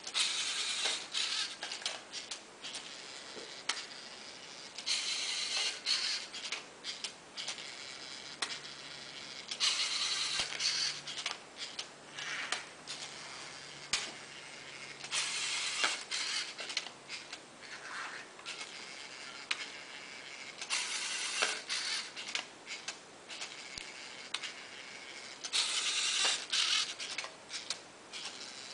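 Lego NXT card-dealing robot at work: its geared servo motors whir in bursts of about a second, roughly every five seconds, as it deals one card at a time. Sharp plastic clicks and clacks come in between.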